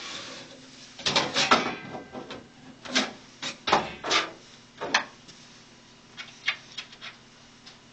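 Screws being set and driven into the LCD's metal mounting frame with a screwdriver: a run of scrapes and knocks, then light clicking near the end.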